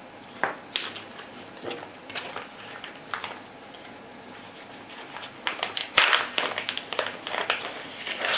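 Clear plastic parts bag crinkling and rustling as hands pick it up and handle it, in irregular bursts that grow busier in the second half. A single sharp click sounds about six seconds in.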